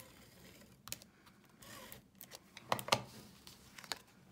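Scattered light clicks and taps of a Fast Fuse handheld adhesive applicator and card stock being handled as adhesive is put on the back of a paper flap, with the loudest clatter about three seconds in.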